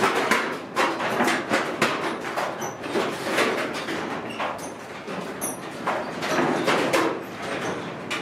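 Footsteps crunching on a dirt floor strewn with debris, irregular, about two to three steps a second.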